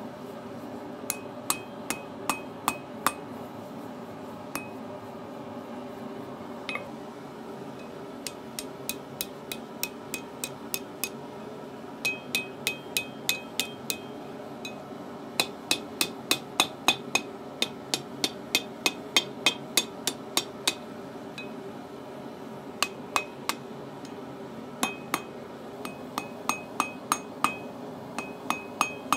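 Hand hammer striking hot steel on a 30 kg steel anvil while forging a hook: runs of quick blows, about three a second, each with a short bright ring, broken by pauses of a second or more.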